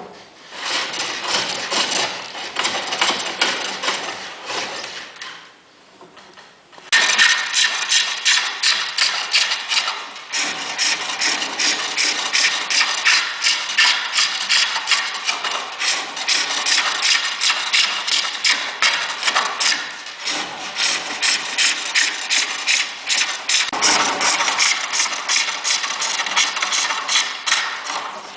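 A lathe tool cutting a spinning workpiece: a rapid, rasping scrape of many fast ticks. It comes in short, quieter stretches at first, then turns loud and continuous about seven seconds in, as the cut goes on.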